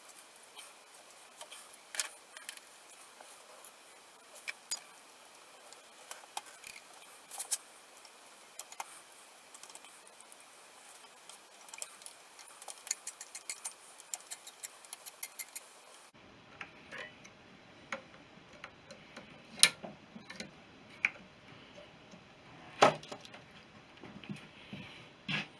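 Scattered short clicks and light metallic taps of hand tools on motorcycle clutch and primary-drive parts, irregular, with a few louder knocks in the second half.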